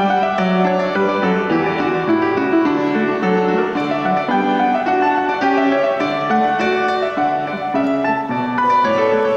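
Piano playing a Scottish country dance tune with a steady beat, notes changing in a regular rhythm.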